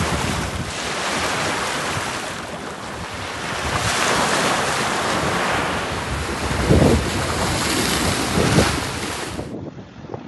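Sea waves breaking and washing over sand and a rocky ledge, with wind buffeting the microphone in gusts. Near the end the sound drops quieter.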